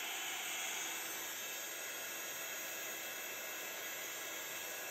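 Craft heat tool running steadily, its fan blowing hot air with an even hiss.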